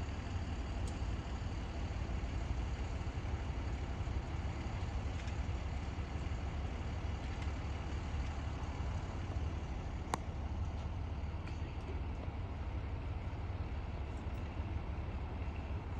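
Steady low rumble of idling fire-truck engines, with one sharp click about ten seconds in.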